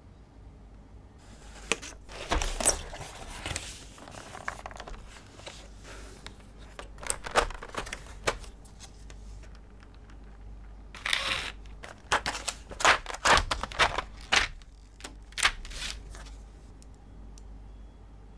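Packaging being handled and opened during an unboxing: crinkling and rustling with sharp clicks and taps, in three bursts of handling separated by quieter pauses.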